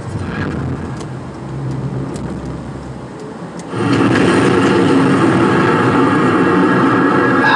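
Car running down the road, heard from inside the cabin as a low rumble of engine and tyres. About halfway through it suddenly gets much louder and stays loud as a steady rushing noise.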